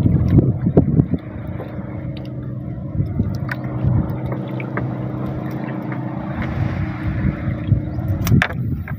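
A small boat engine running steadily at low revs, with a few sharp knocks in the first second and another near the end.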